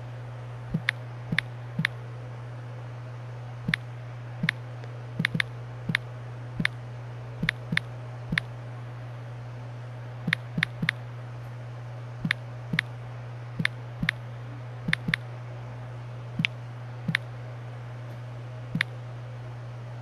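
Typing on a smartphone's on-screen keyboard: about two dozen sharp key clicks at an uneven typing pace, over a steady low hum.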